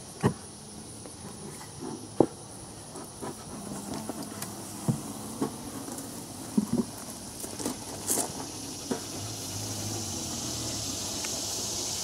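Wooden hive boards and top bars being handled: scattered light knocks and clacks of wood on wood, over a steady hiss that grows louder near the end.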